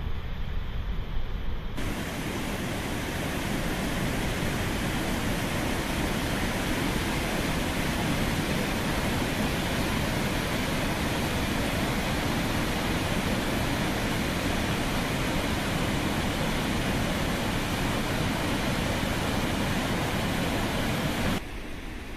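Water pouring over the curved crest of a dam's overflow spillway: a loud, steady rush of falling water. It is duller and more distant for the first two seconds and drops suddenly to a fainter rumble near the end.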